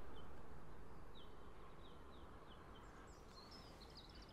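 A small songbird singing faintly: a run of short, repeated chirps starting about a second in, with higher notes near the end, over low outdoor background noise.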